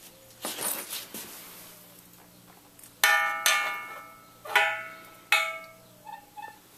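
Thin metal template plate knocking against the steel digger bucket four times in the second half, each knock ringing briefly with a metallic tone. Softer handling rustles come about half a second in.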